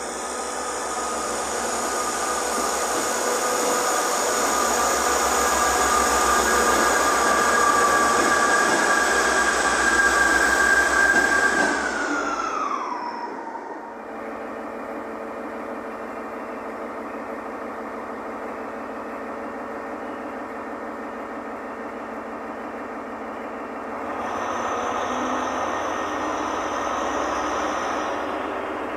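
ScotRail Class 158 diesel multiple unit pulling in, its engine and transmission whine growing louder as it approaches, then the whine falling in pitch and fading about twelve seconds in. After that, a Class 43 HST power car's diesel engine hums steadily nearby and grows louder about 24 seconds in.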